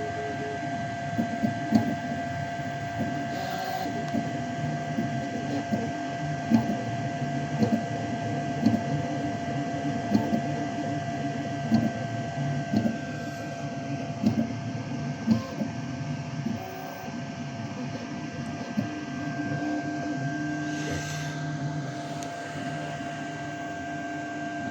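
Creality K1C 3D printer running a print: a steady whine with shifting motor tones and irregular short ticks as the print head moves.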